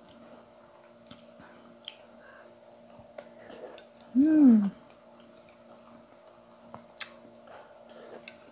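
A person eating with her fingers from a plate: quiet chewing and small scattered mouth and plate clicks over a faint steady hum. About four seconds in comes one short voiced hum from her that falls in pitch.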